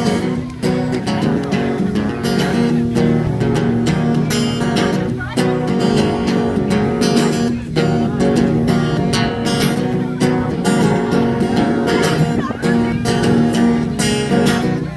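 Acoustic guitar strummed in a steady rhythm: the instrumental lead-in to a live folk song.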